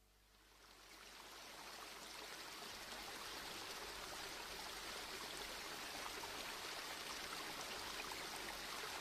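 Faint, steady rush of flowing water that fades in after about a second of silence.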